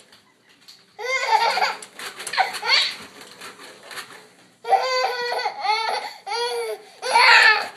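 A baby laughing in three bouts of high, pulsing giggles: about a second in, again past the middle, and briefly near the end.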